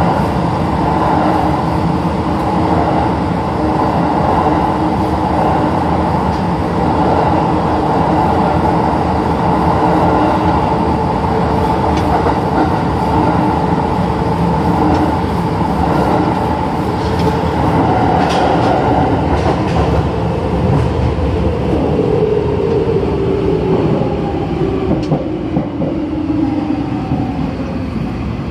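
Tokyo Metro 2000 series subway train running, its Toshiba all-SiC inverter and permanent-magnet synchronous motors humming under steady wheel-on-rail noise, with a few sharp clicks. About two-thirds of the way through, a motor tone begins falling steadily in pitch and the noise eases as the train slows.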